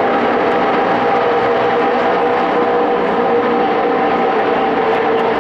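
Pack of NASCAR Camping World Truck Series race trucks' V8 engines running at speed around the oval: a loud, steady drone with several held tones.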